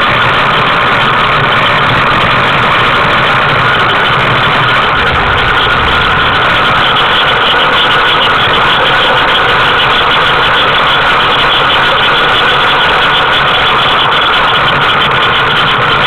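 Steady, loud rushing noise of a tricycle rolling along an asphalt street, with tyre noise and wind noise mixed together.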